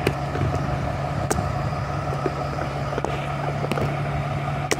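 Vehicle engine idling: a steady low hum with a few faint clicks.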